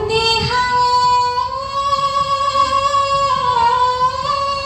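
Pepa, the Assamese buffalo-horn pipe, sounding one long bright note that slides up at the start and is then held steady for about four seconds, wavering briefly near the end.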